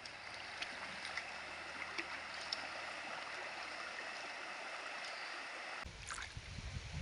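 Shallow, rocky river flowing with a steady rush of water and a few faint small splashes. About six seconds in, wind starts buffeting the microphone with a low rumble.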